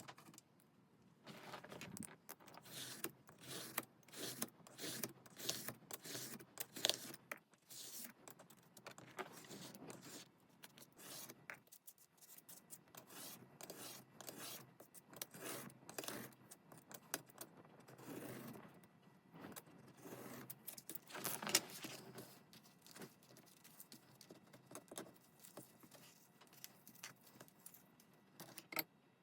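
Paper and stationery being handled while making a junk journal: irregular rustling, light taps and scraping, thinning out near the end.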